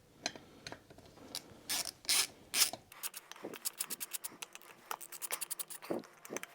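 Socket ratchet spinning out the already-loosened T50 Torx rear wheel bolts of a BMW R1200GS Adventure. A few separate metal clanks come first, then from about halfway in a fast, even run of ratchet clicks.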